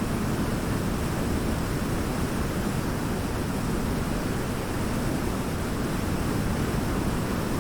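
Waterfall: water falling and rushing in a steady, unbroken roar, heaviest in the low range.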